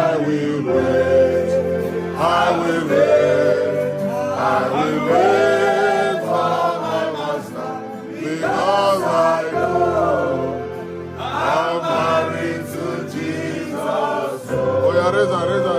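Gospel worship song: sustained, wordless or untranscribed sung vocal lines with choir-like voices over a steady instrumental accompaniment.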